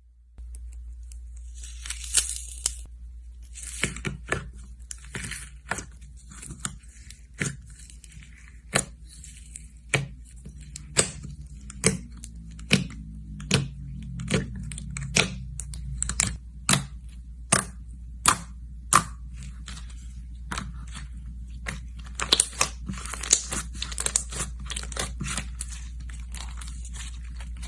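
Slime being squished and stretched, giving a long run of sharp pops, about one every second at its most regular, with bursts of crinkly crackling near the start and again later. A steady low hum lies underneath.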